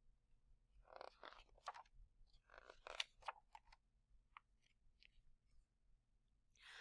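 Faint rustling and light taps of a picture book being opened and its pages leafed through, busiest in the first few seconds.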